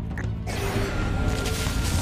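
Cartoon background music with a rustling sound effect of a leafy bush shaking that sets in about half a second in.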